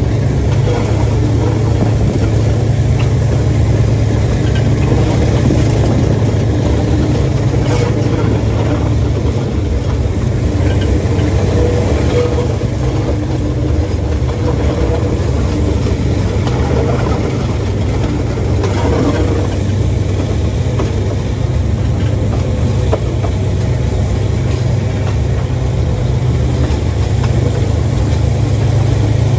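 DJ class diesel-electric locomotive running with a steady low drone as the train travels along.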